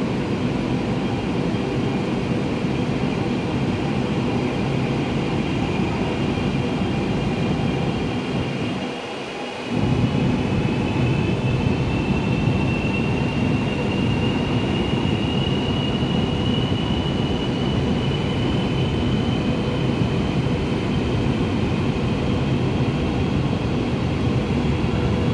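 Chinese CRH high-speed electric multiple unit moving slowly along the platform as it pulls out, with a steady rumble and a thin whine that rises slowly in pitch as the train gathers speed. The low rumble drops away briefly about nine seconds in.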